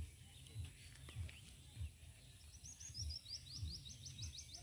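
A small songbird sings a fast series of short, falling high notes, about eight a second, from a little past halfway in to the end, over low, irregular thumping rumble.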